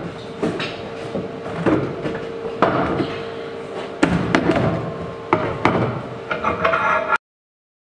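Irregular metal clanks and knocks from a homemade steel bench vise being handled on a wooden workbench, its screw worked with a steel tommy bar and a steel plate clamped in its jaws. The sound cuts off abruptly near the end.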